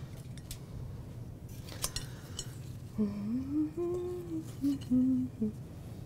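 A few light clinks against a glass bowl as tomatoes are picked out of it. Then, about halfway in, a person hums a short phrase of a few notes, rising and then stepping down, for about two and a half seconds.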